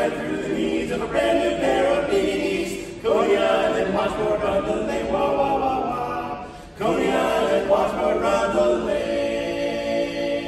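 Barbershop vocal group singing a cappella in close harmony, several voices together, in phrases that break off briefly about three seconds in and again near seven seconds.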